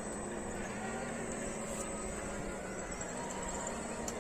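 Electric motors and geartrains of radio-controlled scale trucks running, a steady whir with faint held tones.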